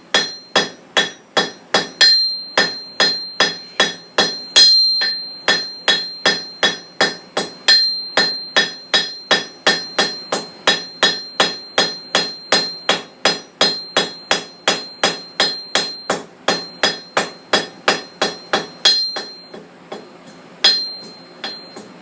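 Blacksmith's hand hammer striking a hot steel bar on an anvil, about three blows a second, each blow followed by a high ring from the anvil. The blows are knocking the corners off a freshly tapered bar to round it. There is a short pause near the end, then a few more blows.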